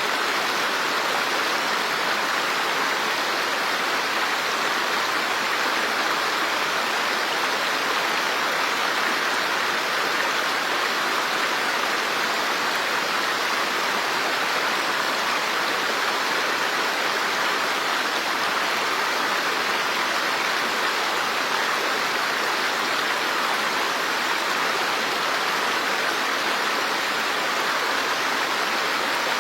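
Running water rushing steadily, one even hiss with no separate splashes or drops standing out.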